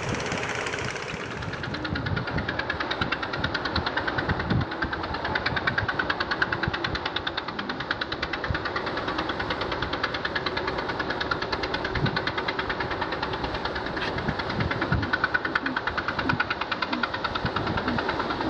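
Fishing boat engine running with a rapid, even knocking beat, louder from about two seconds in.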